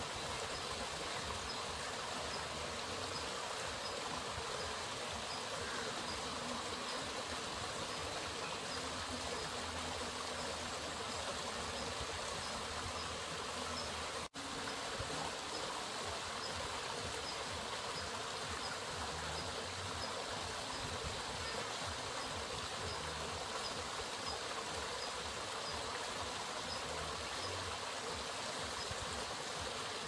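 Water from a wooden flume pouring onto a turning wooden waterwheel and splashing down, a steady rushing flow. The sound breaks off for an instant about halfway through.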